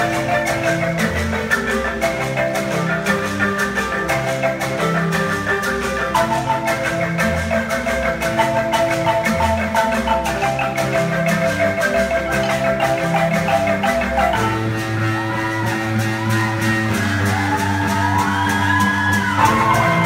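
Ensemble of Zimbabwean-style marimbas with tube resonators played with mallets, many parts interlocking in a quick repeating pattern over bass marimba notes. About fourteen seconds in the texture changes and a held low bass line comes in under it.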